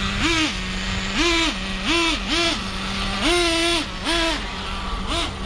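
Small nitro engine of a Traxxas Revo 3.3 radio-controlled truggy idling with a steady buzz and revving repeatedly in short throttle blips, one longer rev held about three seconds in.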